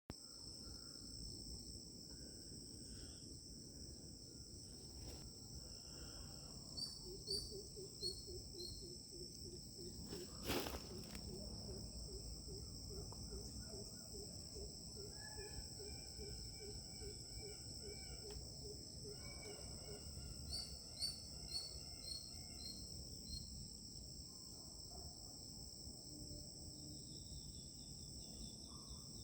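Steady high-pitched drone of insects, with birds calling over it: two runs of short, falling chirps, and a low call repeated a few times a second through the middle. A single sharp click about ten seconds in.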